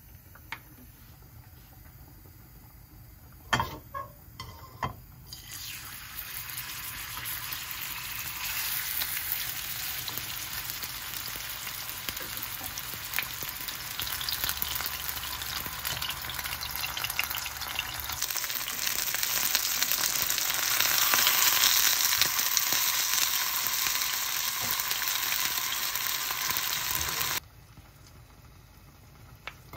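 Chicken breast frying in hot oil in a nonstick pan, sizzling and spattering. A few knocks come about four seconds in, then the sizzle starts and grows louder. It cuts off suddenly near the end.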